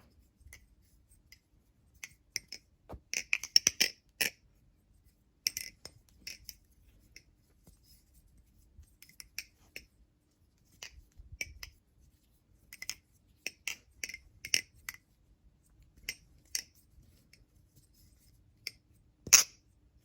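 NRB Vortex balisong (butterfly knife) being flipped: the handles and blade clack together in quick, irregular clicks, in clusters with short quiet gaps, with the sharpest clack near the end.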